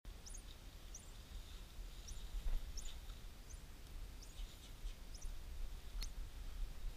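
A small bird chirping repeatedly, about eight short high chirps each falling in pitch, one every second or less, over a low rumble.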